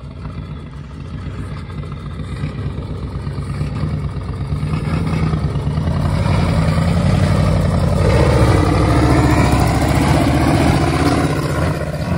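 Ford F-250 diesel engine working under heavy throttle, hauling rear tires that weigh more than the truck. Its steady note grows louder over the first several seconds as the truck comes closer, then holds.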